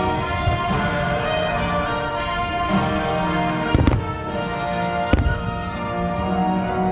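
Fireworks show music plays, with two sharp fireworks bangs over it, about four seconds in and again a little over a second later.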